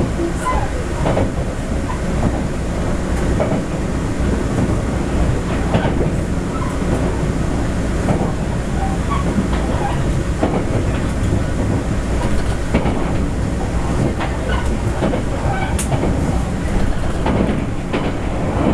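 Running noise heard inside a TRA TEMU1000 Taroko Express tilting electric train car at speed: a steady low rumble of wheels on rail, with irregular clicks and knocks from the running gear.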